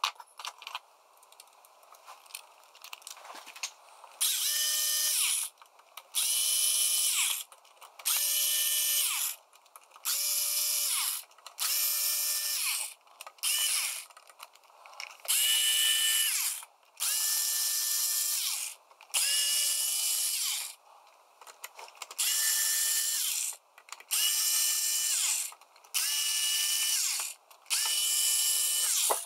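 Cordless electric screwdriver running in short bursts of about a second each, more than a dozen times, backing out the cover screws of a metal equipment case. Each burst is a steady motor whine that rises as it spins up and drops as it stops. Light handling clicks come before the first burst.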